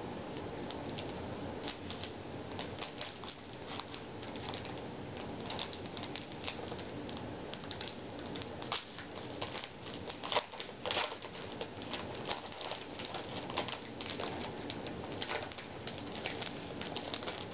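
Trading cards being handled and flipped through by hand: irregular quick clicks, snaps and rustles of card stock, with a faint steady high-pitched tone underneath.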